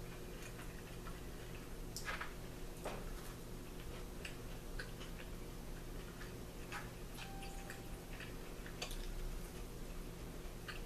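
Faint, irregular clicks and smacks of a person chewing a bite of cookie, over a steady low hum.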